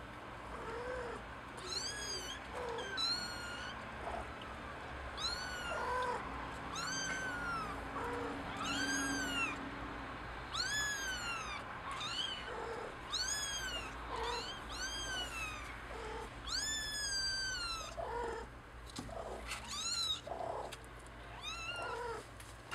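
Young kittens mewing over and over, high-pitched cries that rise and fall in pitch, about one a second, as they crowd their mother to nurse.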